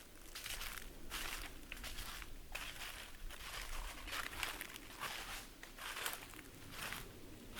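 Footsteps on a forest trail strewn with dry fallen autumn leaves, each step a crunching rustle, about one and a half steps a second at a steady walking pace.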